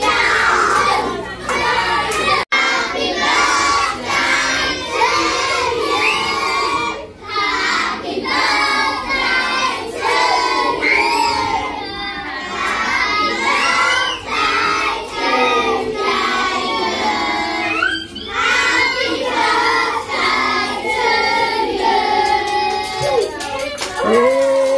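A crowd of children shouting and singing over one another, with music underneath.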